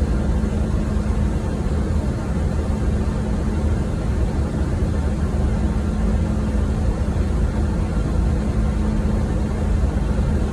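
Airbus A330 cabin noise in the climb after takeoff: the steady rumble of the engines and rushing air heard from inside the cabin, with a constant low hum.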